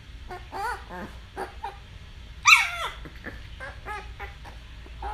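Puppy whimpering and whining in a string of short high calls, the loudest a longer falling whine about two and a half seconds in.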